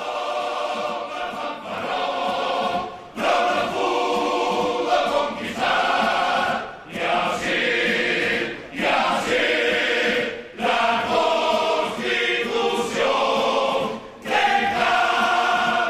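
A Cádiz carnival group, a chorus of men accompanied by guitars, singing in chorus in phrases of a few seconds with short breaks between them.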